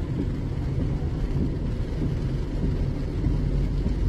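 Steady low rumble of a car driving on a wet road in the rain, heard from inside the cabin.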